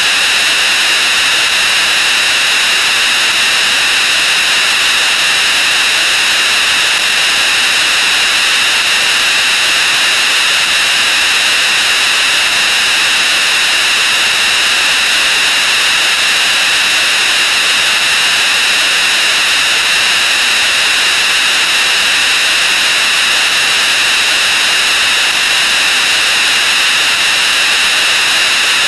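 A loud, steady wall of harsh hiss, strongest in the upper-middle pitches and unchanging throughout. It is sound effects sped up 64 times and piled on one another until they blur into static.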